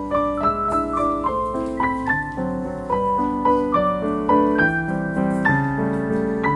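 Background piano music: a steady run of struck notes with a melody over lower chords.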